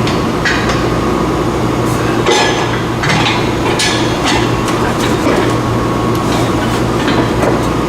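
Irregular metallic clinks and knocks from tools and metal parts being handled under a car, over a steady low mechanical hum.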